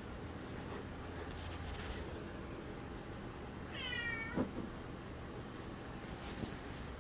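A domestic cat meows once, about four seconds in: a short call whose pitch falls slightly and then drops sharply at the end.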